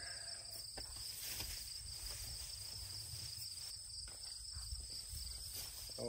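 Steady high-pitched chorus of insects in the grass, a constant trilling drone with a faint low rumble underneath.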